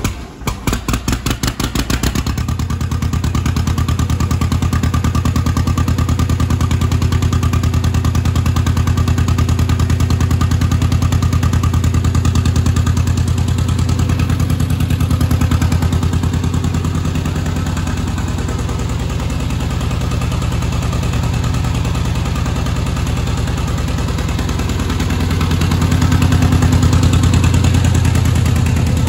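John Deere two-cylinder tractor engine, just started after sitting for a couple of months: it fires unevenly for about the first two seconds as it catches, then settles into a steady idle of evenly spaced exhaust beats. It runs a little louder near the end.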